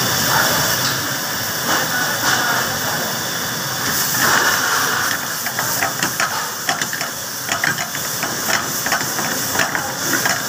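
Dal mash frying in hot oil in a pan over a high gas flame, with a steady sizzling hiss. From about five seconds in, frequent sharp crackles of spattering are heard as the pan is tossed and the flame flares.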